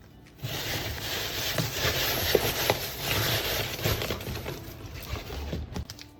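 Paper rustling and crinkling as it is handled, with many small crackles and clicks. It starts abruptly about half a second in and dies down near the end.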